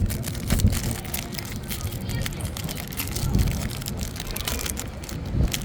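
Wind rumbling steadily on the microphone, with the foil wrapper of a baseball card pack crinkling and tearing as it is ripped open.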